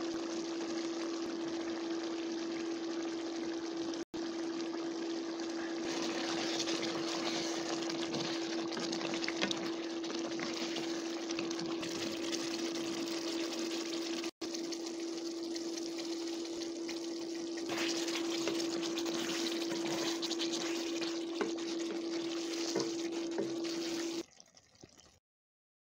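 Meat curry boiling and bubbling in a pan, a steady sizzling hiss with a constant low hum underneath. It cuts off abruptly near the end.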